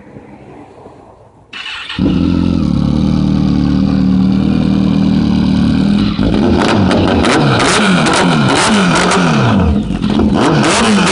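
2007 Kawasaki Ninja ZX14's inline-four engine started; it catches about two seconds in and idles steadily. From about six seconds in it is revved in a quick run of throttle blips, each rising and falling in pitch.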